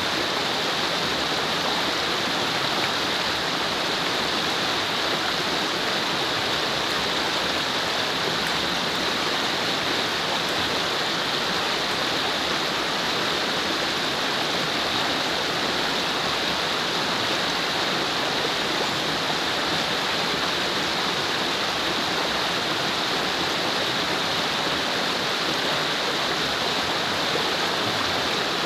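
Mountain creek running over rapids: a steady, unbroken rush of water.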